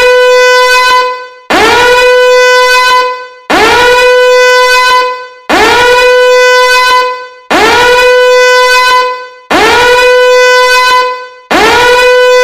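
Alarm horn sound effect: a loud, horn-like tone that swoops up in pitch, holds steady for about a second and a half, then fades, repeating every two seconds.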